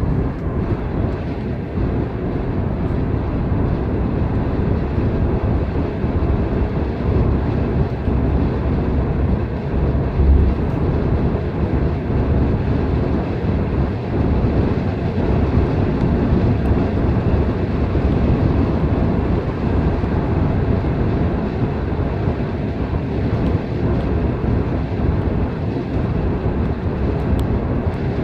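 Steady road and engine rumble heard inside a moving car's cabin, with a brief louder bump about ten seconds in.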